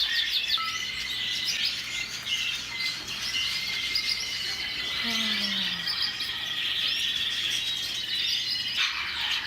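Many caged canaries chirping and singing over one another, a dense chorus of rapid trills and twitters, with one long steady whistled note about a second in.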